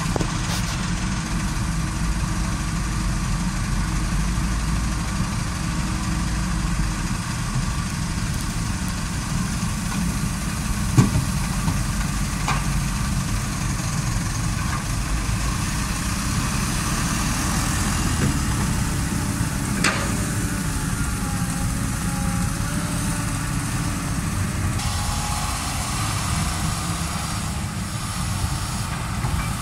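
Diesel engines of a Mitsubishi Colt Diesel dump truck and a hydraulic excavator running steadily, with a few sharp knocks.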